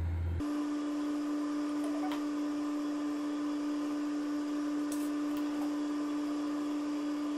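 A steady hum at one unchanging pitch starts abruptly about half a second in and holds at an even level, with a couple of faint clicks.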